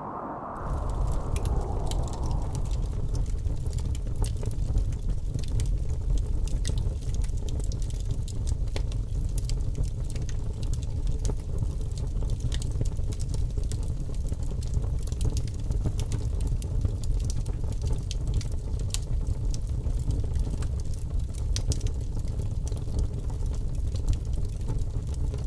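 A steady low rumble with a fine crackle over it, like bubbling liquid, from a constructed soundscape. It sets in about half a second in and breaks off at the end.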